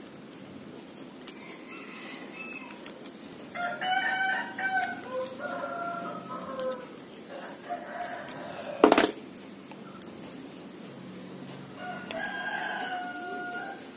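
A rooster crowing and chickens clucking, several calls of a second or two each, some falling in pitch at the end. A single sharp click about nine seconds in is the loudest sound.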